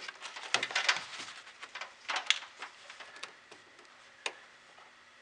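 Light clicks and rustling as a digital multimeter and its test leads are handled and set on a car battery, busiest in the first two seconds, with one sharp click about four seconds in.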